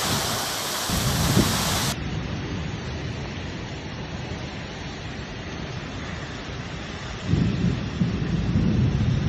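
Heavy rain and wind of a violent thunderstorm, a steady hiss. Low rumbling swells about a second in and again, louder, near the end.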